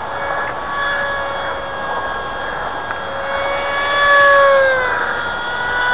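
Electric motor and propeller of a radio-controlled foam F-22 model plane whining in flight. The pitch holds steady, swells near four seconds, then drops about five seconds in.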